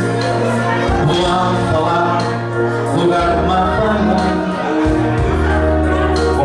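Music with singing over held bass notes that change every second or two.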